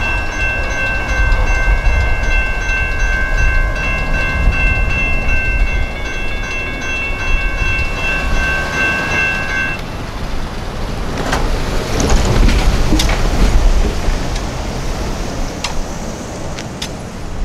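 Railroad grade-crossing warning bells ringing steadily, then cutting off suddenly about ten seconds in as the gates finish rising and the activation ends. Under them runs a low rumble, and after the bells stop come a few sharp knocks as road traffic starts across.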